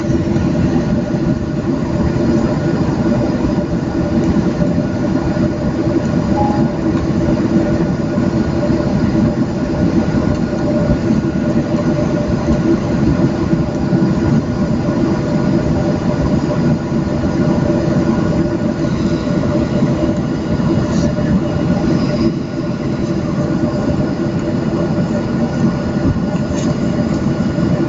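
Boeing 737-700's CFM56 jet engines running steadily at low thrust, heard inside the cabin beside the engine: a constant hum of several steady tones over a deep rumble as the airliner rolls along the taxiway.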